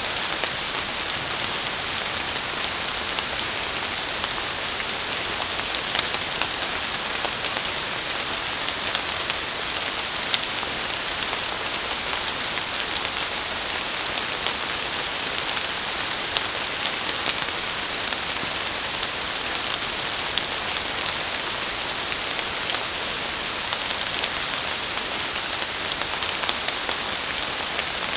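Steady rain falling on leaves and the forest floor, an even hiss with many individual drops ticking throughout.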